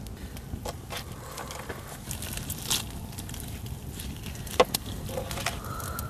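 Wood campfire crackling, with scattered clicks and handling clatter as a grilled whole chicken is lifted off a wire grill and set on a stone plate, and one sharp knock a little past four seconds in.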